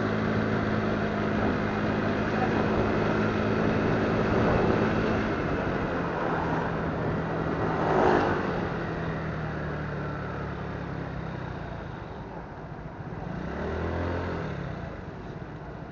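Motorcycle engine running while riding through city traffic, with road and wind noise. About eight seconds in there is a brief louder swell, and near the end an engine note rises and falls.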